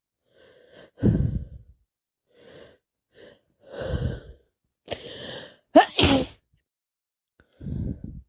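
A woman with a heavy head cold sneezing: several catching breaths build up over the first five seconds, then a loud sneeze bursts out about six seconds in, followed by another breath.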